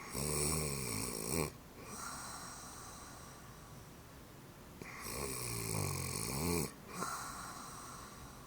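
An elderly woman snoring in her sleep: two loud, rasping snores about five seconds apart, each about a second and a half long and followed by a softer breath.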